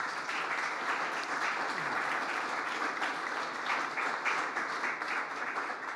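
Audience applauding: a steady round of clapping from many hands.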